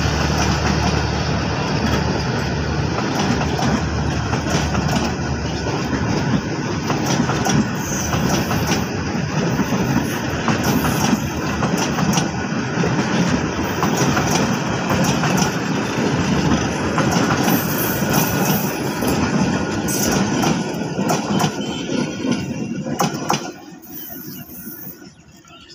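Bangladesh Railway passenger train's coaches rolling past close by, a loud steady rumble and rattle of wheels on the rails. The noise drops away sharply near the end as the last coach goes by.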